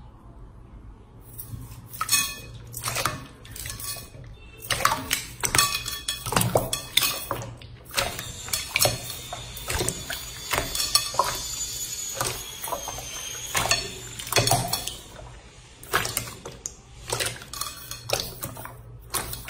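Hands squeezing and stretching a clear, wet slime in a glass bowl: a quick, irregular run of sticky squelches and sharp popping clicks, busiest in the middle.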